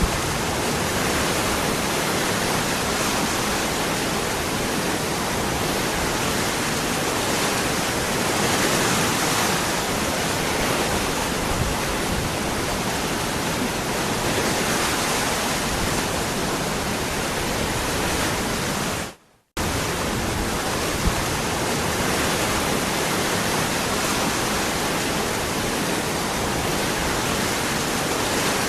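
Steady rush of a waterfall, even and unbroken. About 19 seconds in it cuts out for a split second and then resumes unchanged.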